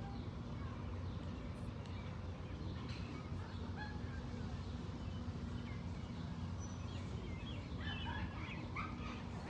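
Outdoor park ambience: a steady low hum under scattered short bird calls, with the calls coming thicker near the end.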